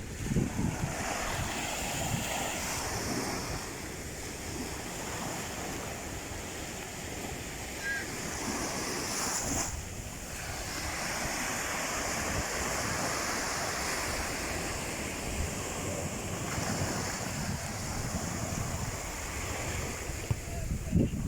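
Sea waves breaking and washing continuously in a steady surf, with wind gusting against the microphone.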